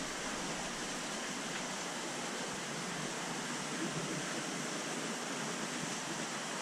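Steady rushing hiss of water and air bubbles circulating in a large aquarium, even and unbroken.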